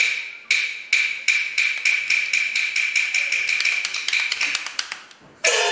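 A wooden pole tip tapping a metal pan lid over and over. Each tap rings with a bright metallic tone, and the taps quicken to several a second before stopping about five seconds in.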